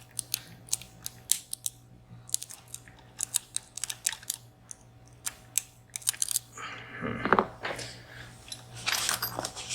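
Irregular, sharp metallic clicks of a dimple lock pick working the pins inside a three-row VSR dimple lock under tension, with a louder scrape about two-thirds of the way through.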